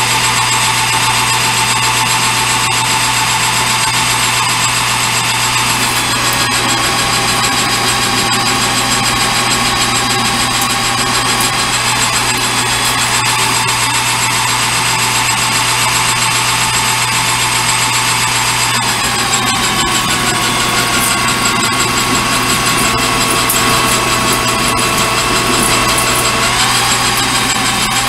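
Metal lathe running steadily under a light turning cut, a steady multi-tone machine whine over a constant motor hum. One tone sags slightly in the second half and rises back near the end.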